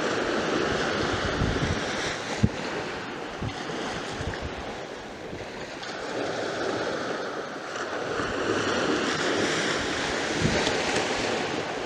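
Surf breaking on a sandy beach, a steady wash that swells and eases, with gusts of wind buffeting the microphone in low thumps.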